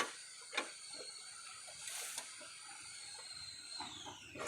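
Metal mower-deck parts being handled: a few sharp clanks and knocks, one at the start, one about half a second in and a loud one at the end, with a brief scrape about two seconds in. Under them runs a steady high-pitched whine that slides down in pitch just before the last knock.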